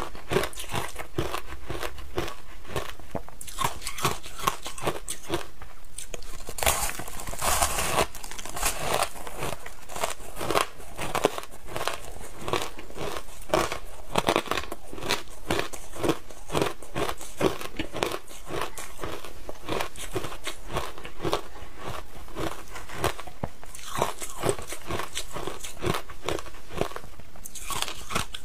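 Packed shaved ice being bitten and chewed: a dense, steady run of sharp, crackling crunches as the ice breaks between the teeth.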